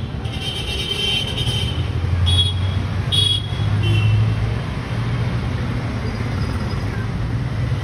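Steady road-traffic rumble, swelling as a heavier vehicle engine passes about two to four seconds in, with several short high-pitched toots in the first four seconds.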